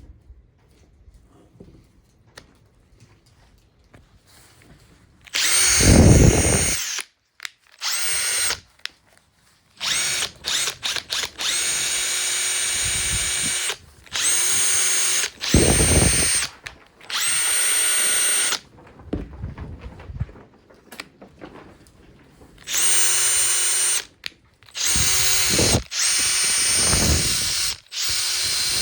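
Makita TP131D cordless 4-mode impact driver's motor run free in repeated trigger pulls of one to three seconds each, with a steady high whine, plus a quick series of short trigger blips about ten seconds in. Three of the runs carry a deeper, heavier sound underneath and are the loudest, the first about six seconds in.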